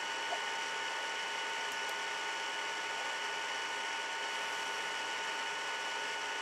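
Room tone: steady hiss with a few faint constant high-pitched whining tones, and one faint tick about a third of a second in.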